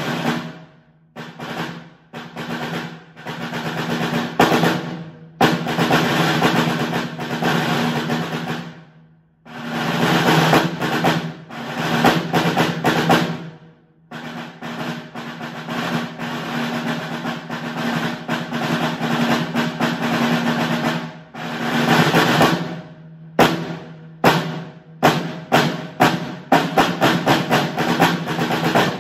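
Concert snare drum played with sticks: long sustained rolls that swell in loudness and break off, with short gaps between phrases, then a run of separate sharp strokes coming faster near the end.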